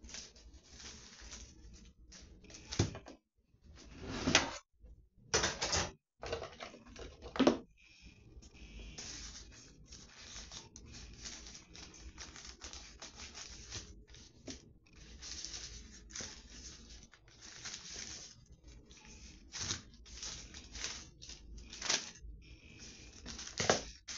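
Paper or plastic wrapping being handled and cut at a kitchen counter: irregular rustling and crinkling, with several sharp louder rips scattered through.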